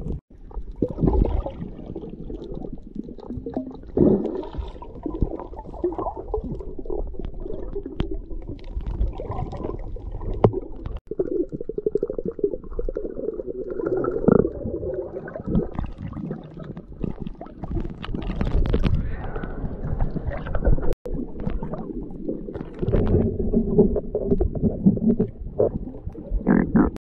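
Muffled underwater sound from a camera held under water: a low rumbling and gurgling of water moving around it, with scattered short knocks. It drops out briefly twice, at about 11 and 21 seconds.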